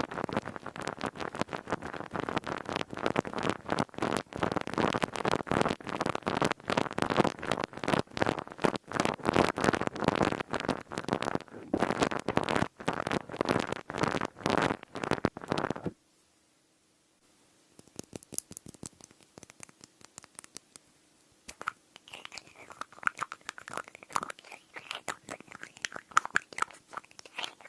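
Dense, crisp crackling of a crinkly material close to the microphone, which cuts off abruptly about two-thirds of the way through. After a moment's silence come sparse clicks of a lid and light taps on glass, with short ringing notes.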